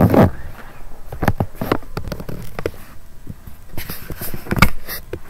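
Irregular knocks, bumps and rustling from a handheld camera being moved about close to the body. The loudest bumps come at the very start and again about four and a half seconds in.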